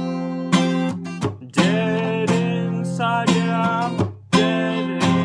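Acoustic guitar with a capo strummed in a slow, even rhythm, with a young man's voice singing over it from about a second and a half in. The playing dips briefly near the end, then picks up again.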